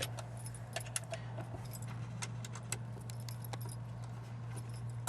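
Allen wrenches clinking and ticking against metal as the seat's front slider bolts are tightened: scattered light, sharp metallic clicks over a steady low hum.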